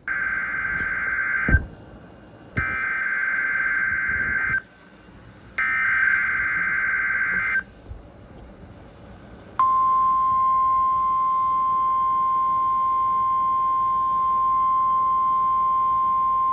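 NOAA Weather Radio weekly test signal: three bursts of SAME digital header data, each about two seconds long with about a second's pause between them, then the steady 1050 Hz warning alarm tone, which comes on about ten seconds in.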